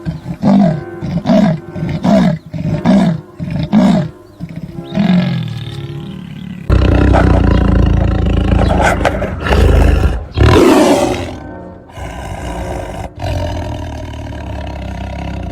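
Big cats roaring: a run of short roars about two a second over the first four seconds, then longer, louder roars from about seven seconds in.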